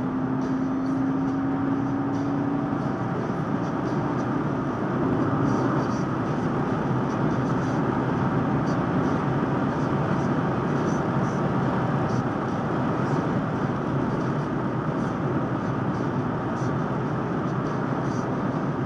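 A car driving on the highway, heard from inside the cabin: steady engine and tyre noise, with a faint engine note rising slightly over the first few seconds.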